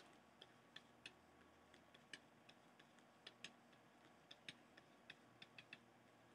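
Faint, irregular clicks of a stylus tapping on a pen tablet during handwriting, over near-silent room tone.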